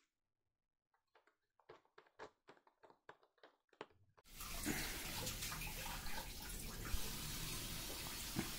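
A few light clicks or taps, then about four seconds in, water suddenly starts running steadily, as from a tap.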